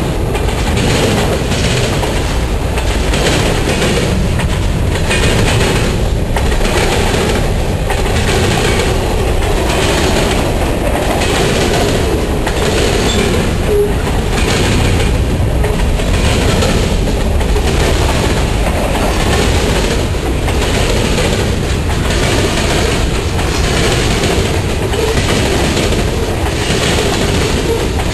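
Freight train passing close by: autoracks, covered hoppers and boxcars rolling on steel wheels, clicking over the rail joints in a loud, steady, rhythmic clatter.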